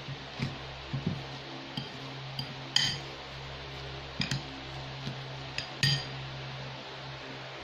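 A metal fork clinking and scraping against a ceramic bowl while mixing tuna with crushed crackers: about a dozen irregular knocks, the loudest about three and six seconds in, stopping about six seconds in. A steady low hum runs underneath.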